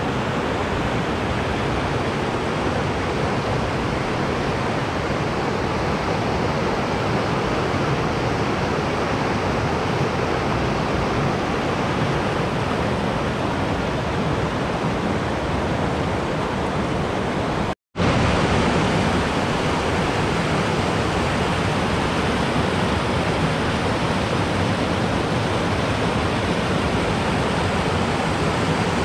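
Greer Spring's outflow rushing over rocks and logs in whitewater rapids, a loud, steady roar of water. The sound cuts out for a split second a little past halfway, then carries on.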